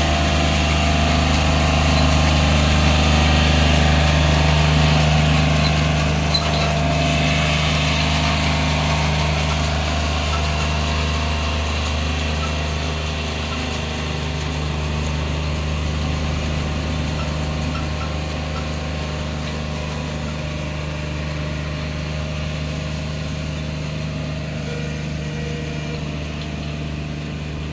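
Diesel farm tractor engine running steadily while towing a rotary road-sweeping brush. It slowly fades as the tractor moves away.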